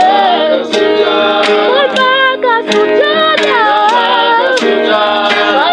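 Swahili gospel song: a voice singing a melody that glides between notes over guitar chords, with a steady beat struck a little more than once a second.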